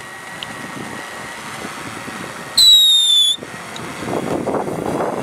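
Firework mounted on a hovering drone spraying sparks with a hiss over the drone's propeller hum. About halfway through, a loud whistling firework shrieks for under a second, falling slightly in pitch. A rougher crackling rush builds near the end.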